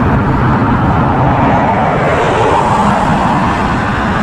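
Twin-engine jet airliner on final approach with its landing gear down: loud, steady jet engine noise, a rushing sound that grows slightly brighter a couple of seconds in.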